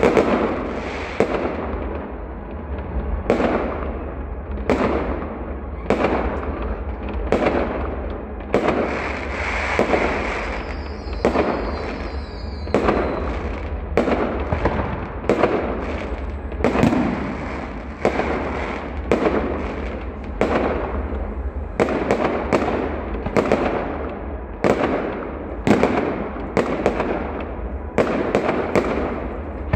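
Fireworks display: shells bursting one after another, about one every second or so, each bang trailing off in an echo.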